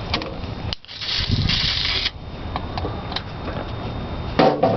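Aerosol brake cleaner sprayed as starting fluid, a hiss lasting about a second that starts about a second in, over low mechanical noise with a few clicks.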